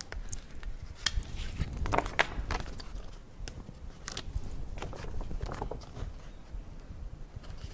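Irregular light clicks and taps over a low background rumble, with no speech.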